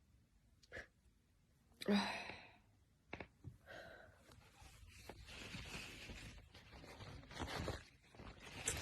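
A young woman's sneeze: one sharp, short voiced burst about two seconds in, followed by softer breathy sounds.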